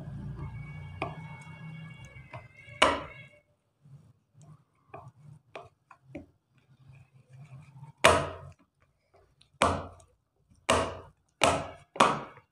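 A series of sharp, loud knocks: one about three seconds in, then five more near the end, coming closer together.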